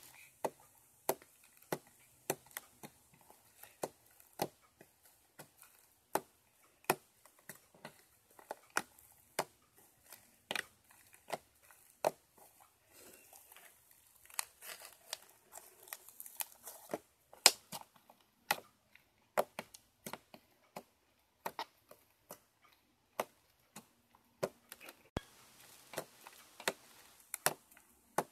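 Homemade slime being poked, pressed and folded by fingers, giving a string of sharp, irregular clicks and pops from trapped air, about one or two a second. In the middle it is stretched between the hands with a softer crackling sound.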